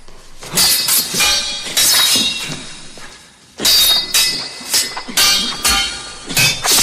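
Steel swords clashing, about a dozen sharp metallic strikes that ring after each blow, many of them in quick pairs, with a short lull in the middle.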